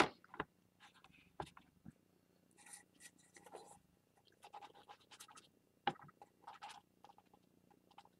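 Ink being rubbed and dabbed onto paper with a small sponge: faint, short scratchy scrubbing strokes in irregular bursts, with a few light taps and clicks.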